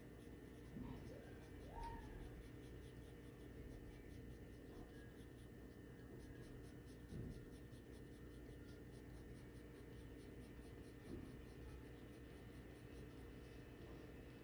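Faint scratching of a Prismacolor Premier colored pencil on white drawing paper, shading in quick repeated strokes, over a low steady hum.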